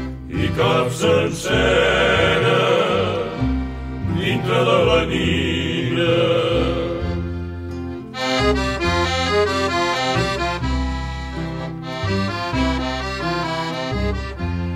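Accordion-led instrumental break in a Catalan song, with steady bass notes underneath. A held melody with vibrato fills the first half, then quicker accordion note runs take over from about eight seconds in.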